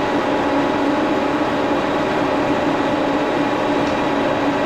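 1942 Brown & Sharpe No. 2 plain milling machine with a high-speed vertical head, running steadily: an even machine hum with a steady tone.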